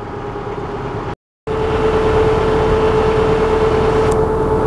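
Motorboat engine running steadily underway, with water and wind noise. The sound drops out briefly about a second in and comes back louder, with a steady droning tone.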